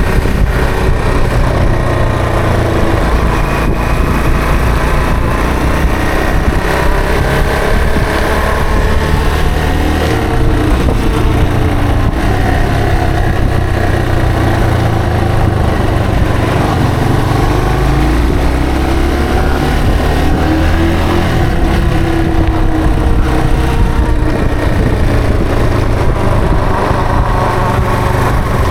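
Yamaha TW225's single-cylinder four-stroke engine running while riding, its pitch rising and falling several times as the bike speeds up and slows down.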